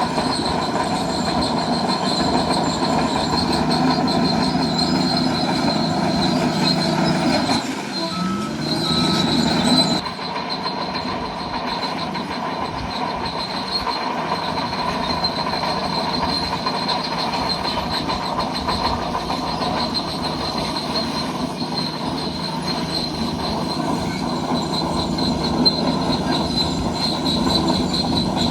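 Bulldozer running under load, its steel tracks squealing and grinding steadily. The sound dips and shifts briefly about eight seconds in, then carries on.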